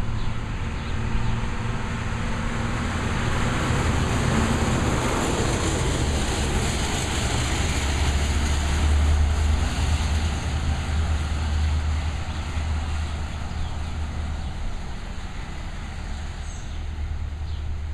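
Truck engine rumbling at close range over street traffic noise. It grows louder through the first half, is loudest around the middle, then eases off.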